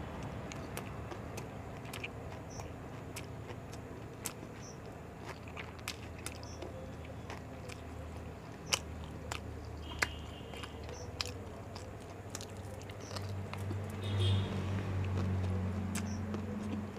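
Close-up chewing and biting of an egg roll, with many small wet mouth clicks. A steady low hum comes in about thirteen seconds in.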